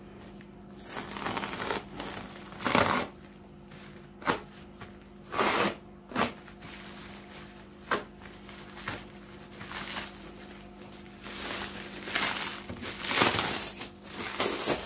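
Plastic stretch wrap and bubble-wrap packaging crinkling and tearing as a parcel is cut open, in irregular rustling swishes with a few short sharp clicks, over a faint steady hum.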